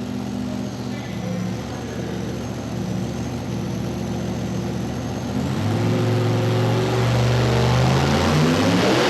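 Modified pulling tractor's engine running with a steady note, then about five and a half seconds in it gets louder and its pitch steps up. Near the end it climbs further into a rising roar as the tractor throttles up for its pull.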